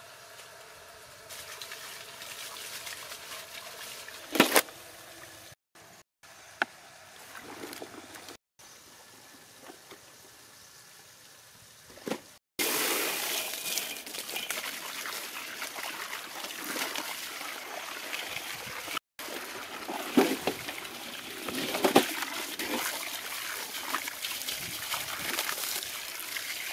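Water from a garden hose pouring and splashing into a steel basin of cow offal as it is washed, steady and loud, with a few louder splashes. Before that, quieter handling sounds and one sharp thump a few seconds in.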